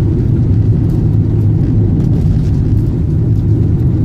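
Van engine and tyre noise heard from inside the cab while driving at a steady speed: an even low rumble.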